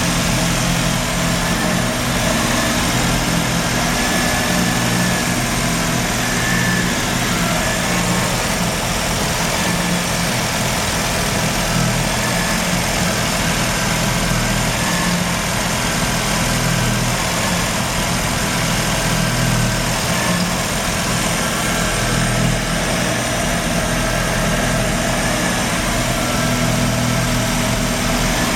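Mazda RX-7 FD's twin-rotor 13B rotary engine idling roughly and unevenly, misfiring; the owner links it to very high CO readings at inspection.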